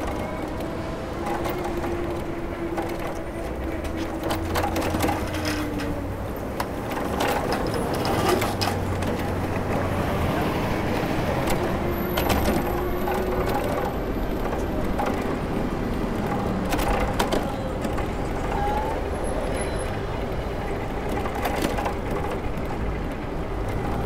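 City street traffic heard from a moving bicycle: a steady low rumble of passing vehicles, with scattered clicks and knocks throughout.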